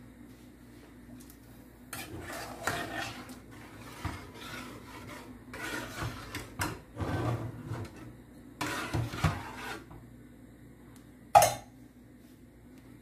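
A metal spoon stirring and scraping inside a saucepan of sausage and ground beef in watery sauce, in several bouts, then a single sharp clank near the end as the lid is put on the pan.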